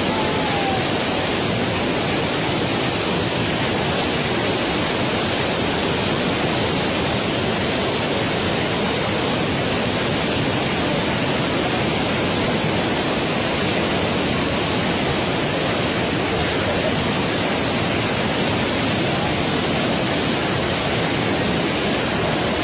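Loud, steady rush of a muddy flash-flood torrent pouring down a street, the roar of a creek that has burst its banks.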